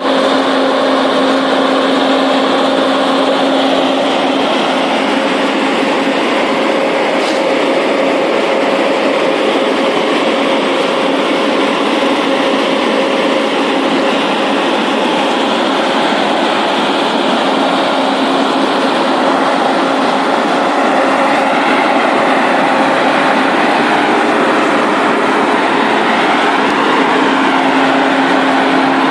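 UNIPAVE ASP-075 sensor paver running steadily while paving: a loud, continuous machine noise with a steady engine hum that fades back a few seconds in and returns near the end.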